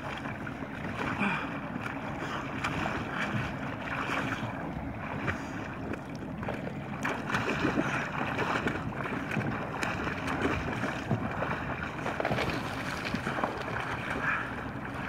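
Water splashing and thin, brittle lake ice crunching and cracking as a person in a drysuit kicks and tries to crawl out of a hole in the ice, with many small crackles throughout. The ice is too weak to bear his weight and keeps breaking.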